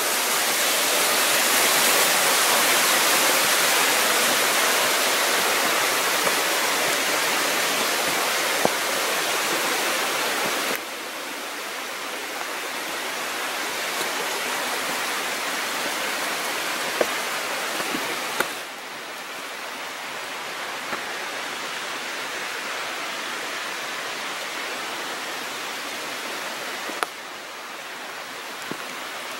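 Waterfall rushing steadily. It drops abruptly in loudness three times, about a third of the way in, just past halfway and near the end, with a few faint knocks.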